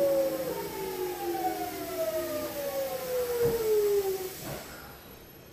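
Hitachi GTO-VVVF inverter and traction motors of a Kintetsu 1220 series train whining in several tones that fall steadily in pitch as the train brakes for a station stop. There is a thump about three and a half seconds in, and the whine ends about a second later as the train comes to a stop.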